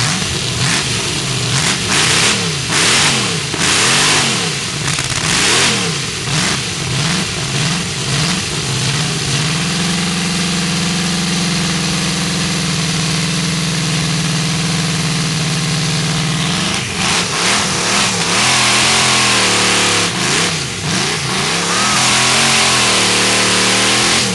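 V8-engined hot saw revving up and down repeatedly, then held at steady high revs for several seconds, and blipped again. Near the end it settles at high revs as the chain cuts into the log.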